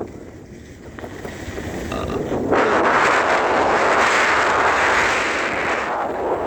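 Wind rushing over the microphone as a steady roar of noise. It is quieter for the first second or two, swells about two and a half seconds in, and dips briefly near the end.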